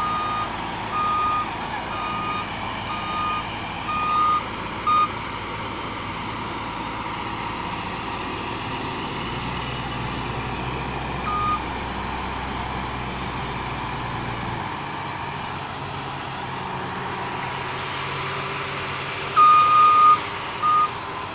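Reversing alarm beeping in short bursts over the steady running of tractor diesel engines. There is a run of about six beeps in the first five seconds, a single beep near the middle and a louder pair near the end. The engines' low hum shifts twice partway through as they change load.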